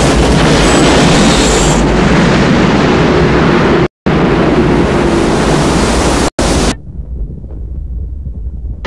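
Disaster-film sound effects of a giant wave surging through a city: a loud, dense rushing roar, broken twice by sudden cuts. About two-thirds in it drops to a muffled low rumble.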